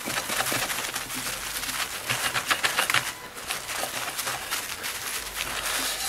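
A cloth rag rubbed briskly back and forth over the aluminium cover of a Kirby vacuum cleaner, buffing off metal polish. The rubbing sounds scratchy and uneven.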